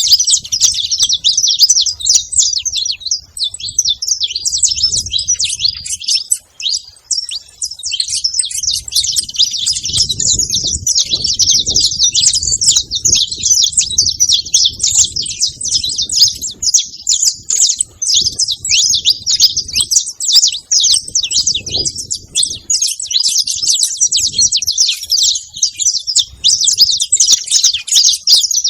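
Saffron finch chirping and singing continuously in a rapid, high-pitched stream of notes.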